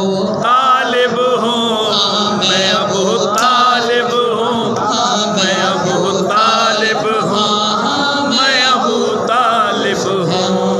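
A naat khwan's solo male voice chanting a devotional Urdu naat into a microphone, in long melodic lines that waver and bend with ornaments.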